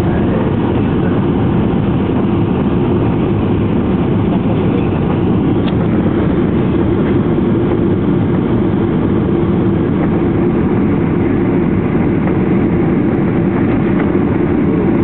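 Cabin noise inside a Boeing 737-800 on approach, heard from a seat behind the wing: a steady, even rumble of its CFM56 turbofan engines and the airflow past the fuselage and extended flaps, with a constant hum running through it.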